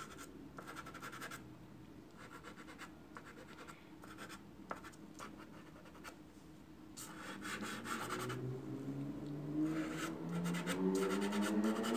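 Fingertips rubbing soft pastel into rough Fabriano paper for soft pastel, in separate scratchy strokes about a second long. A low steady hum builds up over the last few seconds.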